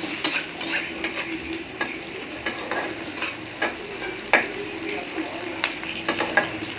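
Chopped onions sizzling in hot oil in a pan while being stirred, with the spoon scraping and knocking against the pan many times at an uneven pace.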